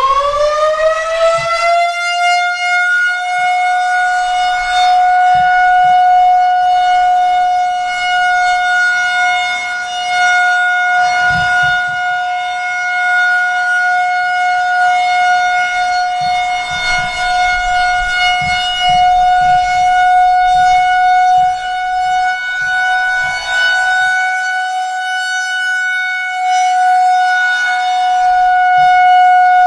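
A Federal Signal 2001-130 rotating outdoor warning siren on a full-alert steady tone, finishing its wind-up to full pitch in the first couple of seconds and then holding one steady, loud tone. Its level swells and dips every few seconds.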